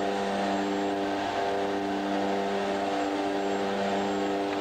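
Steady drone of a propeller aircraft's engine heard from inside the cabin, holding one even pitch throughout.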